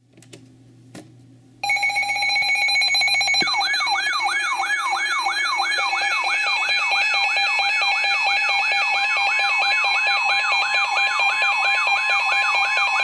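Synthesized electronic alert tones: after a faint click, a loud chord of steady high pitches starts suddenly about one and a half seconds in. About two seconds later a rapid falling sweep joins it, repeating roughly three times a second like an alarm.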